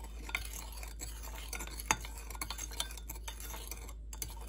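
A spoon stirring a liquid dressing in a small glass measuring cup, clicking and tapping irregularly against the glass, the sharpest tap about two seconds in. The stirring mixes in and dissolves the sugar.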